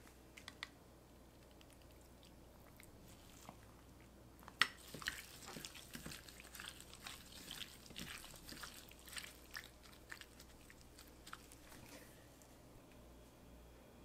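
Seasoned raw chicken leg meat squishing faintly as a gloved hand kneads it in a ceramic dish. The sound starts with a sharp knock about four and a half seconds in, followed by several seconds of irregular soft wet squelches and clicks.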